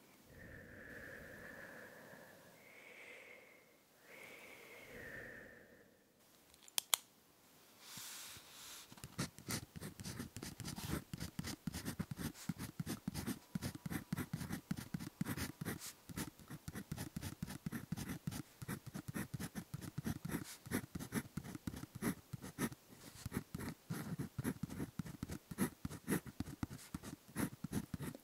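A ballpoint pen writing on paper in quick, scratchy strokes, starting about nine seconds in. Before it come a few soft wavering whistle-like tones and a single sharp click near seven seconds.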